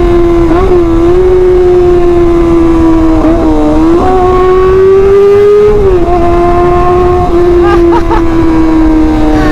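Kawasaki ZX25R 250 cc inline-four with an SC Project titanium exhaust, running loud and shrill under way. Its steady note drifts slowly and dips briefly about half a second in, again around three and a half seconds, and at about six seconds.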